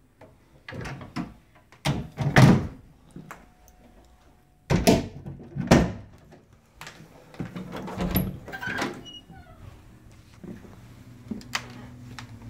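Wooden interior doors being shut and opened: a series of sharp knocks and thuds, the loudest about two and a half seconds in and again around five to six seconds in, with more softer ones after.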